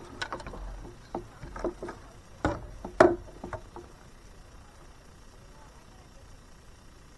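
Scattered knocks and clatter of gear being handled on a fishing kayak, with two louder knocks about two and a half and three seconds in, then only a faint steady hiss.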